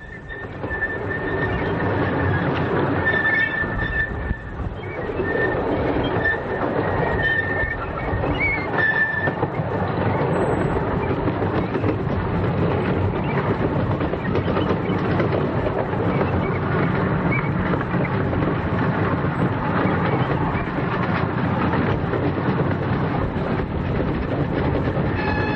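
15-inch gauge miniature railway train running along the track, with intermittent high wheel squeal during the first ten seconds or so.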